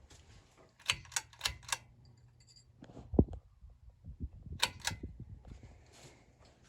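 Four quick sharp clicks, then a single louder knock, then two more clicks, over a low steady hum.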